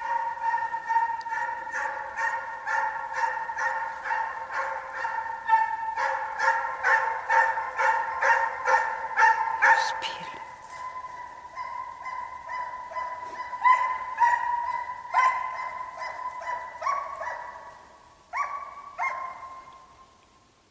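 Russian hounds baying in full cry on the chase: a rapid run of yelps, about three a second, over a held note. About ten seconds in the chorus thins to scattered single yelps, fading toward the end.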